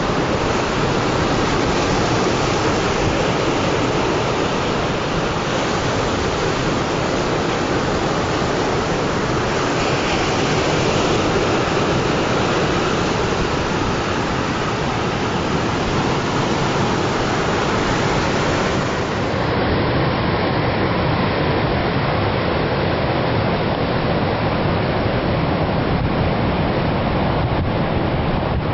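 Sea waves breaking and washing on a shore: a steady, continuous rush of surf.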